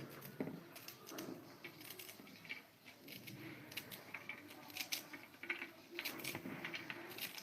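Close-up eating sounds: irregular chewing and crunching, a string of short crisp clicks and crackles.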